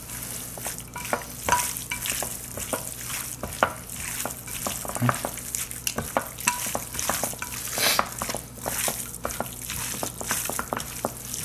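Hands mixing raw chicken pieces in an olive-oil and spice marinade in a glass baking dish: wet, irregular squishing of oily meat with many short clicks and taps.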